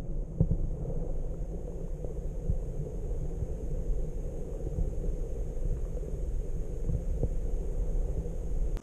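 Muffled underwater rumble of seawater surge heard through a submerged action camera's housing, steady, with a few faint ticks and a faint high whine; it cuts off abruptly at the very end.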